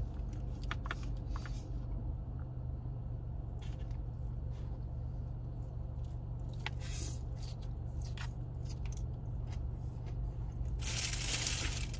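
Eating sounds: a forkful of chicken topped with coleslaw is chewed, with scattered light clicks of a black plastic fork and knife against plastic takeout containers. A steady low hum runs underneath, and there is a short rustle near the end.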